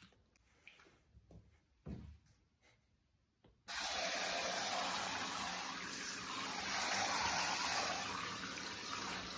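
A few faint small splashes in quiet bathwater, then, about three and a half seconds in, a handheld shower head is turned on and sprays a steady stream of water over a small monkey sitting in the bath.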